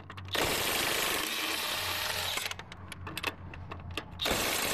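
DeWalt 20-volt cordless impact wrench hammering on a wheel's lug nuts in two loud bursts, the first about two seconds long and the second starting near the end, with a run of sharp clicks between them.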